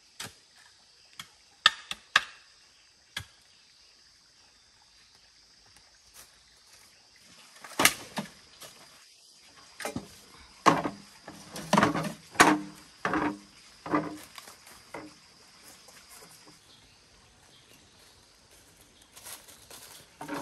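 Chopping strikes on wood: a few scattered knocks, then a quick run of about a dozen blows, some with a short hollow ring. A steady high insect drone runs underneath and stops a few seconds before the end.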